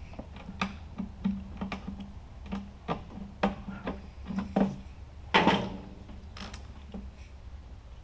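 Irregular small clicks and taps of pliers and a spring band clamp as the mower's fuel line is refitted, with one louder, longer clatter about five and a half seconds in. A steady low hum runs underneath.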